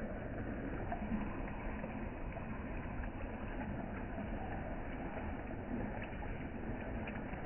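Rain falling onto a pond's surface: a steady wash of sound with many small scattered drop ticks.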